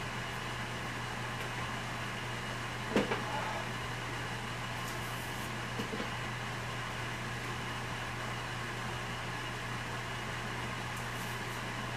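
Aluminium sheet being worked through a hand-cranked bead roller over a steady low hum, with a few light knocks from the sheet and rollers, the loudest about three seconds in and a softer pair near six seconds.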